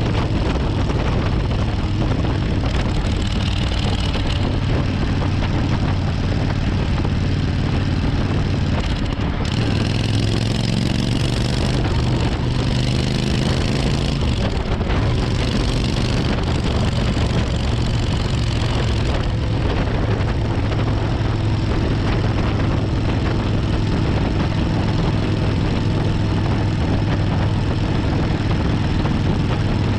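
Suzuki Intruder 1400's V-twin engine running at cruising speed, with wind and road noise. About ten seconds in the engine note shifts and wavers for a few seconds, then settles into a steady drone.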